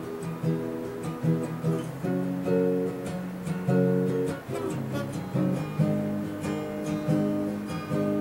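Acoustic guitar strummed in a steady rhythm, about two strokes a second, with the chords ringing between strokes.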